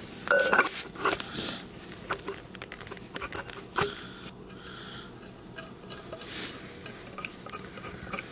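Metal floor jack handle sections clinking and knocking together as they are slid into one another, with light clicks as a bolt is fitted into the joint. A brief ringing clink comes about half a second in, then scattered small knocks.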